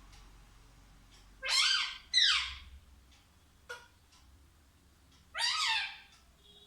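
Pet parrot giving three short pitched calls, each rising and then falling in pitch: two close together about a second and a half in, and one near the end.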